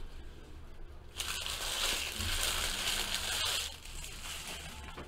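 Foil trading-card pack wrappers crinkling and tearing as baseball card packs are ripped open by hand. A dense burst of crackling starts about a second in and lasts about two and a half seconds, with lighter rustling of wrappers and cards around it.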